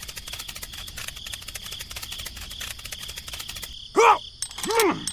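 Crickets chirping steadily in fast, dense pulses. Two short voice-like calls that rise and fall in pitch come near the end.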